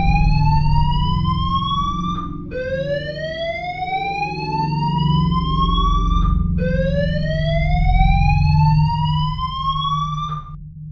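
Alarm siren sound effect: a tone rising in pitch over about four seconds, cutting off with a click and starting again from low, repeating over a low steady drone.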